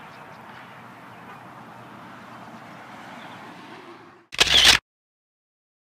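Steady outdoor background noise, then about four seconds in a loud, half-second camera shutter sound, after which the sound cuts out completely.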